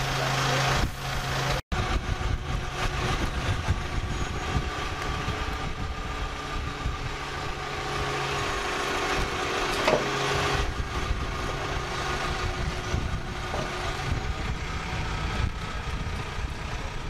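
Tow tractor engine running steadily as it pulls a tracked Flakpanzer on a tow bar, the tank's tracks rolling. There is a brief break near two seconds in and a single knock about ten seconds in.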